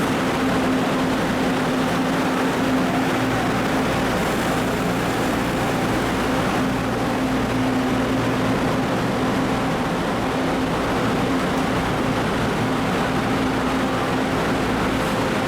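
An engine running steadily with a constant low hum under a broad wash of noise, unchanging in pitch and loudness.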